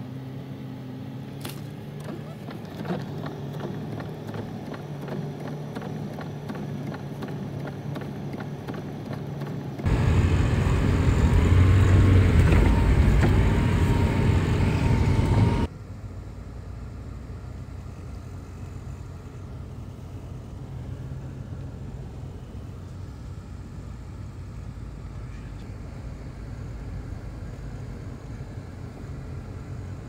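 A car driving, its engine and road noise heard as a steady low hum. In the middle comes a louder, rougher rumble of about six seconds that starts and stops abruptly.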